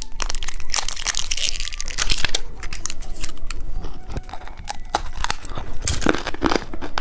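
Plastic candy wrapper crinkling and tearing as it is opened, a dense run of crackles and rips.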